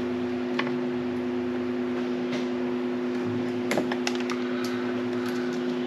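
A steady low two-note hum, with a few light clicks and taps of hand tools and wires being handled, a cluster of them near the middle.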